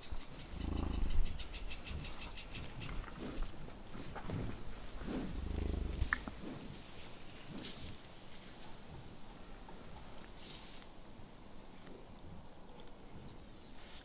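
European bison giving two low, rough grunts during the autumn rut, one about a second in and a longer one around five to six seconds in, with soft rustling and clicks between them.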